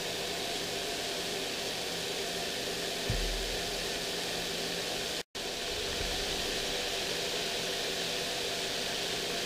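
Sugared peach slices sizzling gently in a dry frying pan on an induction hob: a steady, even hiss, broken by a brief dropout just after five seconds.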